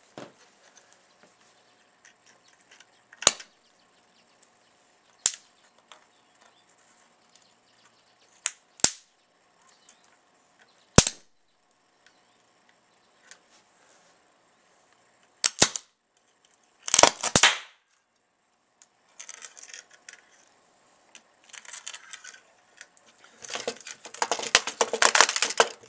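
Electrical arcing from 120-volt mains shorted across a VCR circuit board as it burns out. There are several single sharp pops a few seconds apart, then longer stretches of crackling arc, the longest near the end.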